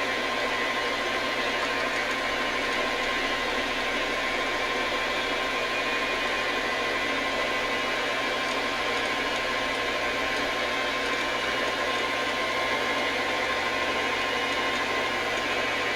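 Metal lathe running steadily while taking a light cut of about a thousandth of an inch off the end of a bench vise handle bar: an even hum and hiss with a steady whine.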